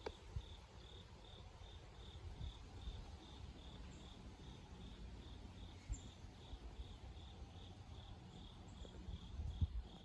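Insects chirping in an even, steady rhythm of about three high pulses a second, with a few low thumps underneath, the loudest near the end.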